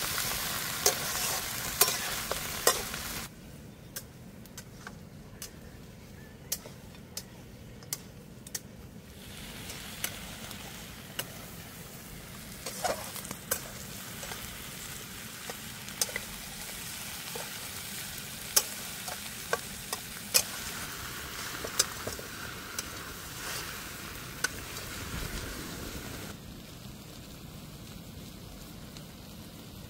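Goat head meat frying in a metal kadhai over a wood fire: a steady sizzle, with sharp clicks and scrapes of a metal spatula against the pan as it is stirred. The sizzle drops quieter about three seconds in while the clicks go on.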